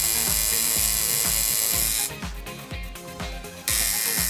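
Electric tattoo machine buzzing over background music with a steady beat. The buzz cuts out for about a second and a half near the middle, then starts again.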